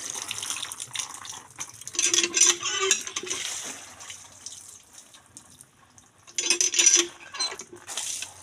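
Water splashing and pouring in two bursts, with some clattering, as if someone is washing at a tap or pump.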